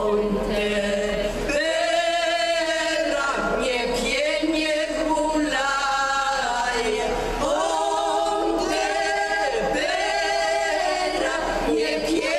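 Women's folk vocal group singing a cappella, several voices together in a traditional Polesie village song. The voices hold long phrases, with a few short breaks for breath between them.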